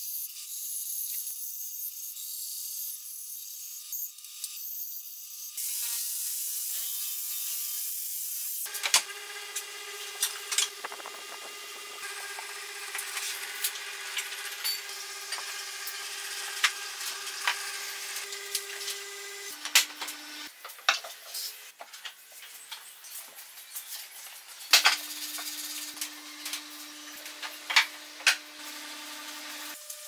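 A band saw running through a wooden board, then wooden birdhouse parts handled and fitted together. Sharp knocks and wood rubbing on wood come over a steady hum whose pitch shifts a few times.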